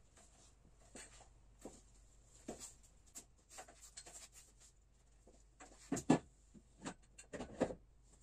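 Long poles and wooden boards being handled and propped against a wooden wall: scattered knocks and scrapes, with a pair of louder knocks about six seconds in and a few more soon after.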